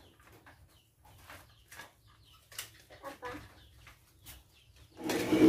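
Chickens clucking in short, scattered calls, with a much louder burst of noise about five seconds in.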